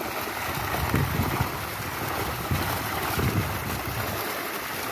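Water splashing and churning as a seine net crowded with milkfish is hauled through shallow pond water, the trapped fish thrashing at the surface.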